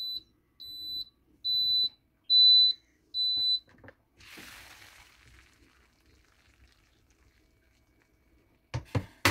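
Instant Zest Plus rice cooker beeping five times, a high-pitched beep about every 0.8 s, signalling that the cooking cycle has ended. About four seconds in comes a short hiss of steam as the lid is lifted, and near the end a few quick knocks.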